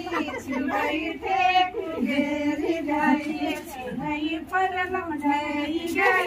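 A group of women singing a devotional kirtan song together, in unison, in long repeating phrases.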